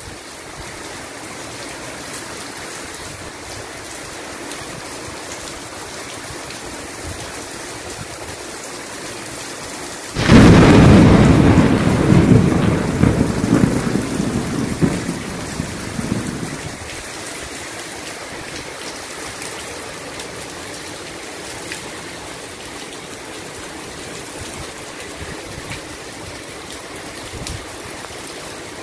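Heavy rain falling steadily. About ten seconds in, a sudden loud crack of thunder breaks out and rumbles for some six seconds before fading back under the rain.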